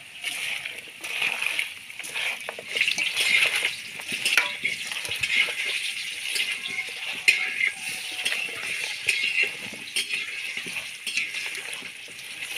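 Wet, squelching sound of a hand kneading and turning raw duck meat with oily ground-spice paste in a steel bowl, going on irregularly, with a few sharp clicks along the way.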